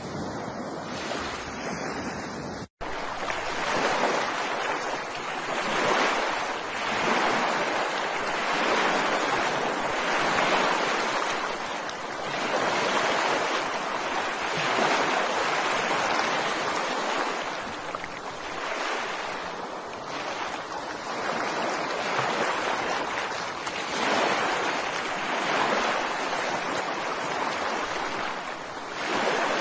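Ocean waves washing onto a shore, the surf swelling and ebbing about every two seconds. The sound cuts out to silence for an instant about three seconds in.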